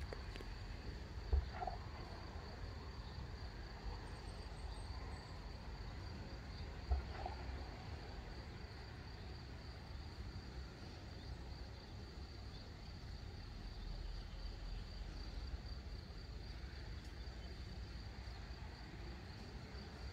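Insects in the meadow chirring, a steady high-pitched buzz over a faint low rumble. Two soft knocks stand out, about a second and a half in and again about seven seconds in.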